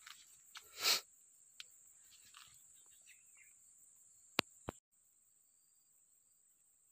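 Insects shrilling steadily at one high pitch, the shrill dropping suddenly quieter just before five seconds in. A brief rustle comes about a second in, and two sharp clicks just before the drop.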